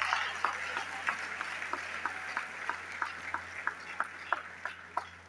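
An audience applauding in a hall. The clapping fades over a few seconds while steady rhythmic claps, about three a second, keep going through it.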